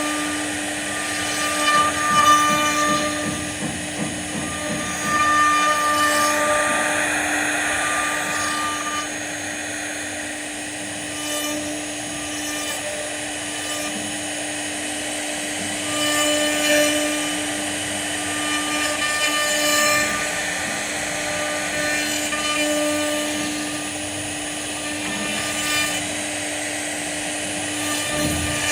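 CNC wood router running while carving, its spindle giving a steady whine, with higher machine tones starting and stopping in short stretches as the cutter moves.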